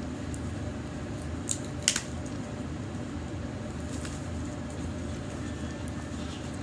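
Small handling noises from a container of jiggly slime: a sharp click about two seconds in and a few faint soft clicks, over a steady low room hum.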